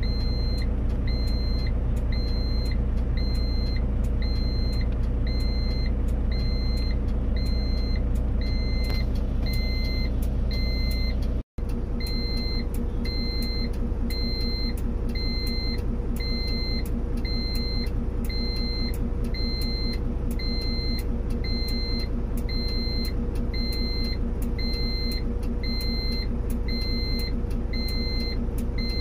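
Bell 429 police helicopter's turbine engine running on the ground, a loud, steady rumble with a steady whine. A short electronic beep repeats about one and a half times a second throughout.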